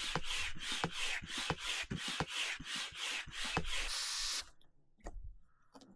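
Hand air pump inflating a drop-stitch inflatable boat floor: an even rasping hiss on each stroke, about three strokes a second, stopping about four and a half seconds in.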